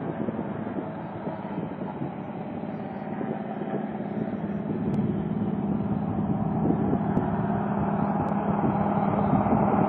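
Amphibious aircraft's engine running steadily with a low hum, growing gradually louder.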